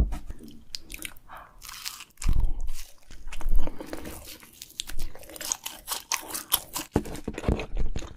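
Close-miked biting and chewing of a fried gimmari (seaweed-wrapped glass-noodle roll), with a run of crackly bites and chews. The fried coating is not as crisp as expected.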